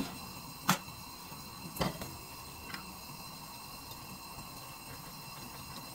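Two light knocks of kitchenware against a non-stick frying pan, about a second apart, then a fainter tick, over a faint steady hum.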